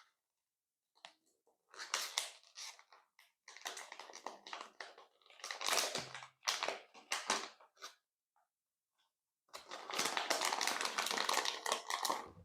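Transparent slime with real candy mixed in being worked, crackling and crunching in three stretches with short silences between them.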